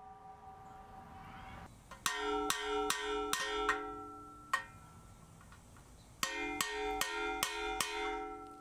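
Stainless steel keg shell ringing under repeated metal taps: two runs of five evenly spaced strikes, each ringing on at the same pitches, with a single strike between the runs.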